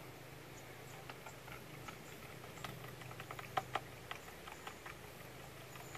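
A scatter of faint, irregular small clicks and ticks, with two sharper ones close together a little past the middle, over a low steady hum.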